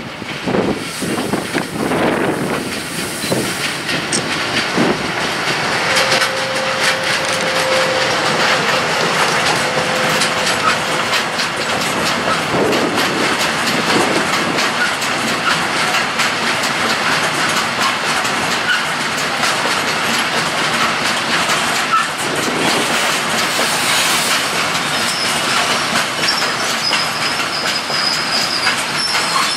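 Freight train of open wagons running through behind an electric locomotive: a steady rumble of wheels on rail with a rapid clickety-clack over the rail joints. A faint steady tone shows about a quarter of the way in, and a high wheel squeal near the end.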